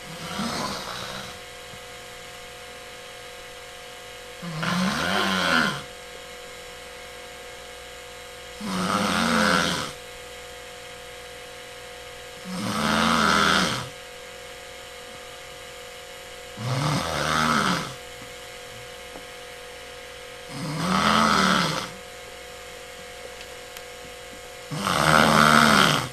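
A person snoring loudly and rhythmically in deep sleep: seven snores of about a second each, one every four seconds or so, each rising and falling in pitch.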